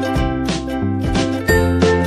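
Background music: an instrumental tune with a steady beat.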